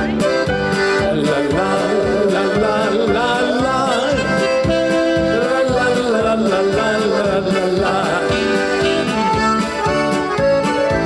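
Live polka band playing: accordion carrying the melody over electric keyboard accompaniment with a steady beat.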